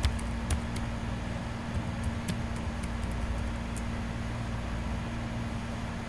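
Steady low electrical hum in the background, with a few sharp computer keyboard and mouse clicks as a password is typed and the login button pressed.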